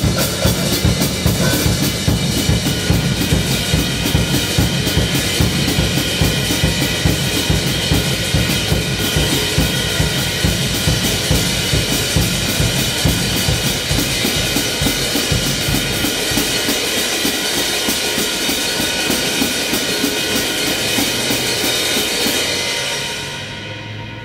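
Drum kit played in a fast, dense groove with kick drum, snare and a steady wash of cymbals. Just before the end the drums and cymbals die away, leaving a low sustained tone.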